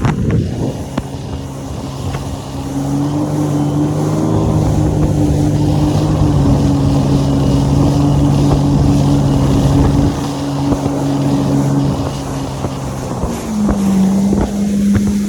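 Jet ski engine running at a steady high speed under way, with wind and water rush; its pitch rises slightly early on, holds, then drops as the throttle eases off near the end.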